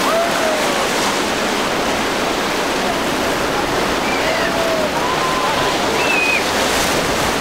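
Steady rushing and churning of breaking waves and boat wake, with faint distant voices calling out now and then.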